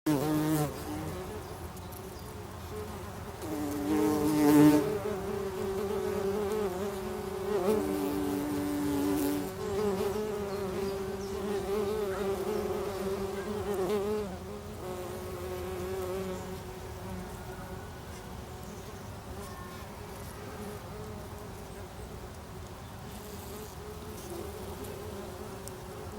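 Bumblebees buzzing in their nest: several wingbeat hums overlap and shift in pitch. The buzzing is louder through the first half, then settles to a quieter steady hum.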